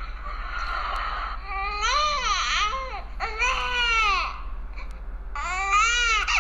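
Young infant's hunger cry: several wailing cries in a row, each rising and falling in pitch with short breaks between, opening on a nasal "na" sound.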